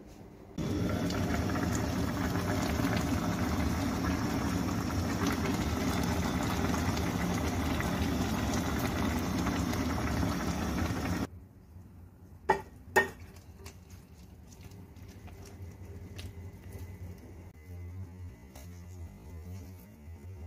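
Pot of fish and vegetables in water boiling hard: a loud, dense bubbling that starts and cuts off abruptly after about ten seconds. Then two sharp clicks half a second apart, and a faint low hum.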